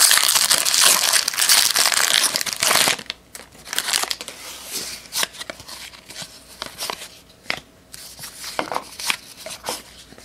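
Foil wrapper of a baseball card pack crinkling and tearing as it is pulled open, loud for about the first three seconds. After that, a stack of cardboard trading cards is handled and shuffled through, with soft scattered clicks and rustles.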